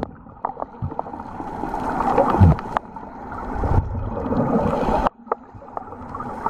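Muffled rushing and sloshing of water around a camera held underwater, swelling and easing in waves, with a few faint clicks. It drops away suddenly about five seconds in.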